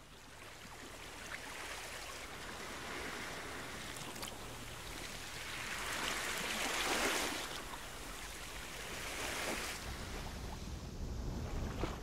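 Sea waves washing in: a hiss of surf that swells to its loudest a little past the middle and falls away, with a low rumble coming up near the end.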